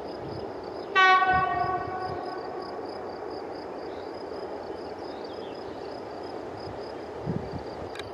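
EU07 electric locomotive sounding one short blast of its air horn about a second in; the note is loudest at the start and dies away over a second or two.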